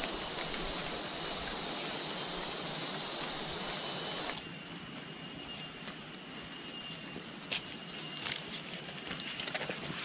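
Rainforest insects droning steadily, high-pitched and continuous. About four seconds in, the dense chorus switches abruptly to a single thin, steady high whine.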